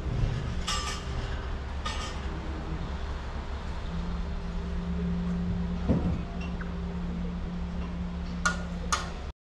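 Steady low mechanical hum with a few light metallic clinks: one about a second in, one about two seconds in, and two in quick succession near the end.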